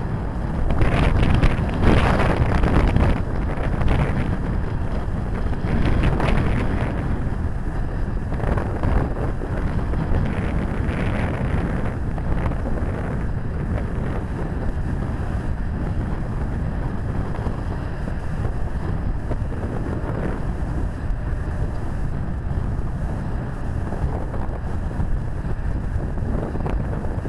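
Wind blowing across the microphone: a steady low rumble that gusts harder several times in the first six seconds or so, then settles.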